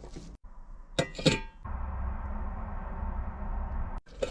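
Two sharp metallic clanks that ring on, about a second in, as a utensil strikes a metal cooking pot, then a steady hiss of food cooking over the fire.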